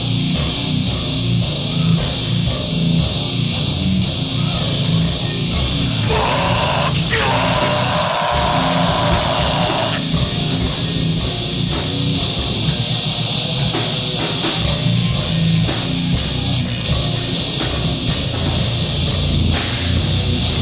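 Live heavy rock band playing loud, with distorted electric guitars, bass and drums. A higher held part stands out for a few seconds about six seconds in.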